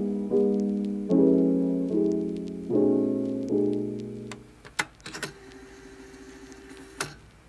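Background piano music, slow sustained chords changing about once a second, fading out a little past halfway. A few faint clicks follow.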